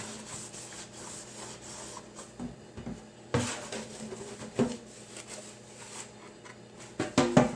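Hard plastic fairing pieces being handled and rubbed, with scattered short knocks and clacks, one louder a little past a third of the way in and a louder cluster near the end.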